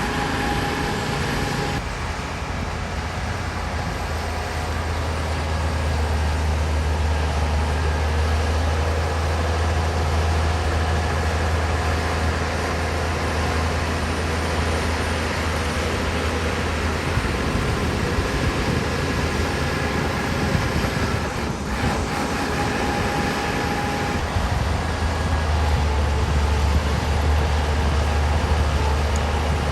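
Shantui DH17 C2 crawler bulldozer's diesel engine running steadily under work, a deep hum with mechanical noise above it. The low hum weakens for several seconds past the middle, then comes back strong.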